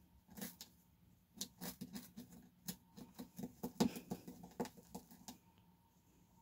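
A guinea pig scurrying and rustling about its pen: an irregular run of small patters and scrapes that stops after about five seconds.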